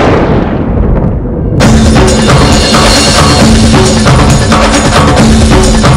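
Dramatic background score: a loud crashing hit that dies away over about a second and a half, then drum-led music with a steady low note.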